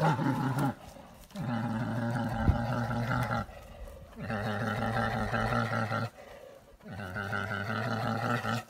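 American black bears growling as they wrestle: a series of long, low, even calls of about two seconds each, with short breaks between them.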